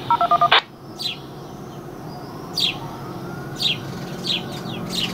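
Birds chirping: about five short, quickly falling chirps spread over a few seconds. At the very start a Baofeng handheld radio gives a short run of electronic beeps that ends in a burst of squelch noise as a transmission closes.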